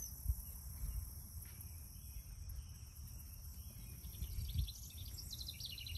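Outdoor ambience: a steady high insect drone, with a quick series of bird chirps from about four seconds in and a low rumble underneath.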